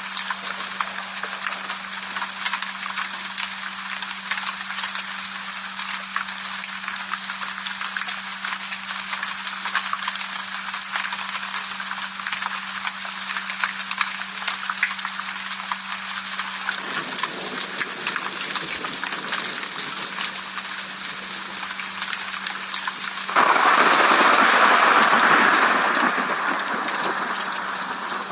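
Steady rain falling, a dense patter of drops with a steady low hum beneath it. About three-quarters of the way through the rain abruptly grows louder for a few seconds, then eases.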